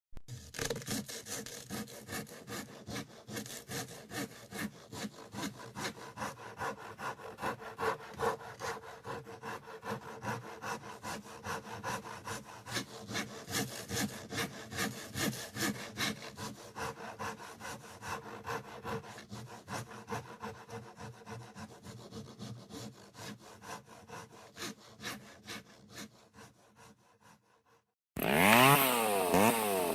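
Rhythmic back-and-forth rasping strokes, about two to three a second, that fade out over the last few seconds. About 28 seconds in, a loud motor starts and revs up and down.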